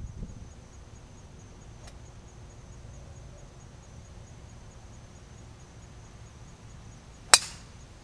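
A single sharp crack from a golf club striking a ball off the tee, near the end. It is the loudest sound, set against a quiet background.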